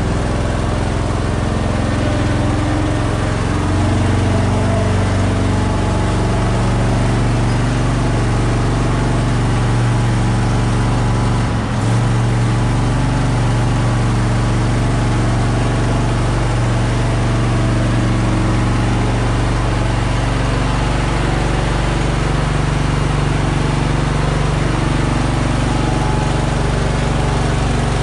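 Husqvarna zero-turn riding mower's engine running steadily while the mower is driven, getting a little louder about four seconds in.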